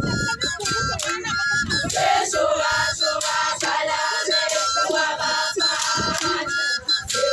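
A large group of girls and young women singing together in chorus as they dance in procession, a repeated call-like melody sung in short phrases.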